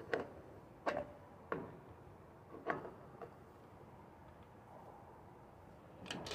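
Sharp clicks and clinks of small engine parts being handled and fitted by hand, with the engine off. There are about five spread over the first three seconds, then a quick cluster near the end.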